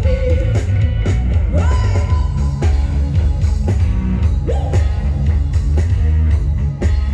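Live Thai band music played loud through a sound truck's speaker stacks with Thai Audio SR18 bass cabinets and TD-112 mid cabinets. There is heavy bass, drums, electric guitar, and a man singing, with rising held notes twice.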